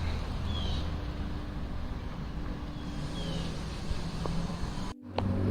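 An engine running steadily with a low hum, a few short high chirps over it; the sound drops out briefly near the end.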